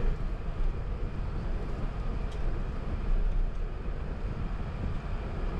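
Steady low rumble of cabin noise inside an Airbus A380 taxiing after landing.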